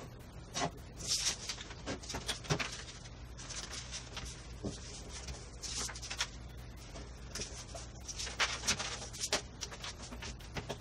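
Sheets of paper being handled and folded on a wooden bench, sped up: rapid irregular rustles, crinkles and light taps, over a steady low room hum.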